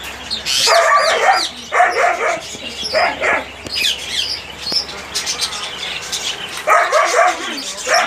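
A dog barking in short runs: about three barks in the first few seconds, then two more near the end. Small birds chirp in the background throughout.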